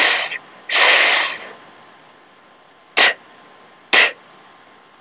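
A voice sounding out phonics letter sounds: a hissed /s/ twice, then the short clipped /t/ sound twice, about a second apart.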